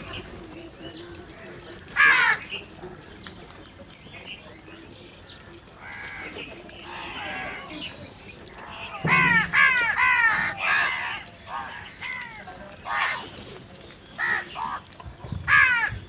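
A flock of house crows cawing: scattered harsh caws, with a quick run of about five calls some nine seconds in and several more near the end.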